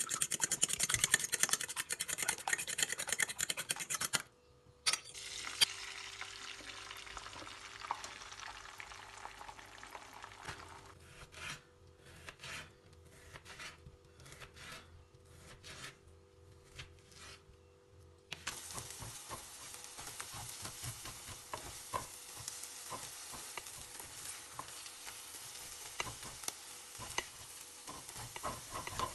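A spoon beats raw eggs in an enamel bowl with a rapid clatter for about four seconds, and then a hissing sizzle starts. Near the middle a knife slices a sausage on a plastic chopping board in a series of separate strokes. In the last third, scrambled eggs sizzle in a frying pan as a spatula stirs and scrapes them.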